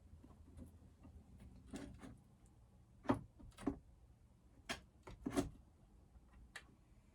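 Scattered sharp clicks and knocks, about six in all, of a bolt and metal parts being handled while fitting a chainsaw handlebar's anti-vibration mount, over a low steady hum.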